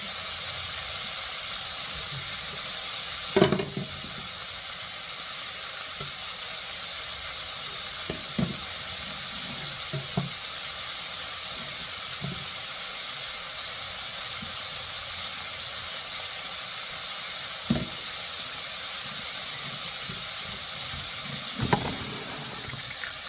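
Flour-coated chicken livers deep-frying in hot oil in a cast-iron Dutch oven, a steady sizzle. A knock about three and a half seconds in, and a few fainter knocks later.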